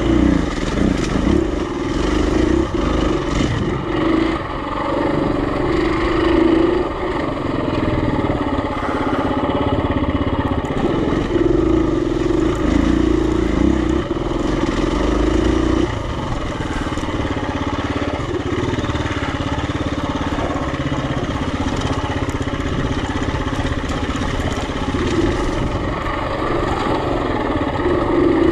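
Single-cylinder four-stroke dirt bike engine running under load, its note rising and easing off repeatedly as the throttle opens and closes. It drops back noticeably about sixteen seconds in.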